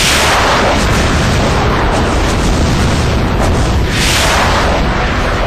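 A bombardment of loud explosions over a continuous deep rumble, with big blasts swelling up at the start and again about four seconds in.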